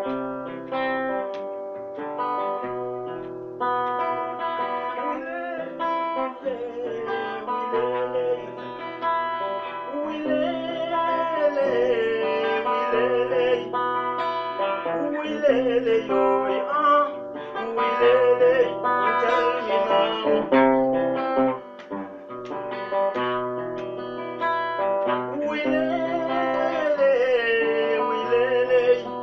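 Acoustic guitar played with picked, ringing notes, joined in stretches by a voice singing a wavering melody.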